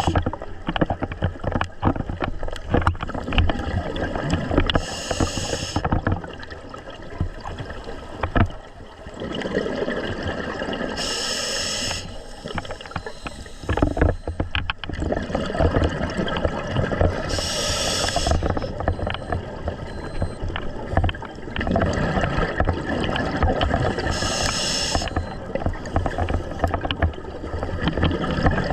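Scuba diver breathing through a regulator underwater: a short hiss of inhalation four times, about every six seconds, with bursts of exhaled bubbles gurgling and crackling in between.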